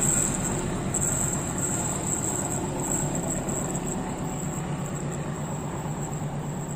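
Coaches of a passenger train rolling away on the rails, the wheel rumble fading steadily as the tail of the train moves off. A steady high insect buzz runs underneath.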